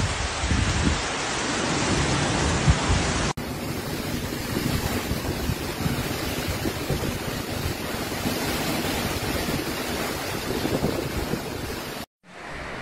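Tropical-cyclone wind and heavy rain, with gusts buffeting the microphone. About three seconds in, the sound cuts to a steadier rush of wind and rain. Near the end it drops out briefly and comes back as quieter rain.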